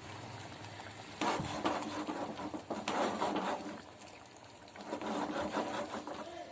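A wide steel pot of simmering fish curry being shaken by hand on a gas stove, its base scraping against the burner in three rasping bursts. The pot is shaken rather than stirred so the fish pieces do not break.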